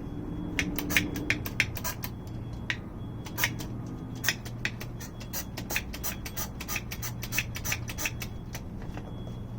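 Caulk gun being worked by hand: a run of sharp, irregular metal clicks from the trigger and plunger-rod mechanism, over a steady low hum.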